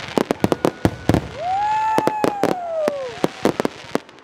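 Fireworks display: a rapid series of sharp bangs and pops from bursting aerial shells. Starting about a second in, a whistle rises, holds and then falls away over nearly two seconds.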